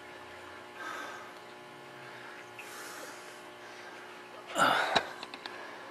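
Low steady hum with faint rustling; about four and a half seconds in, a person's short loud breath, followed by a few light clicks.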